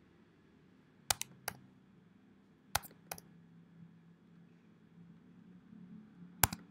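Keystrokes on a computer keyboard: a few sharp, scattered taps in small groups, with long pauses between them and a faint low hum underneath.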